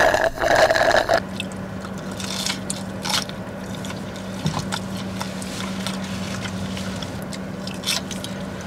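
Sipping soda through a straw from a fast-food cup, a slurp lasting about a second at the start, then chewing with scattered small mouth clicks.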